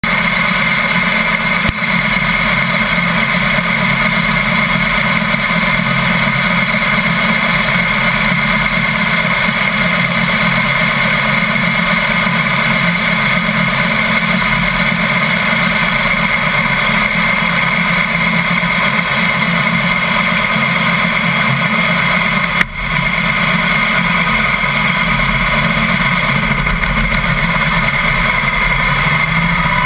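Harley-Davidson Heritage Softail's V-twin engine idling steadily close by, with one brief dip about three-quarters of the way through and the pitch starting to rise near the end.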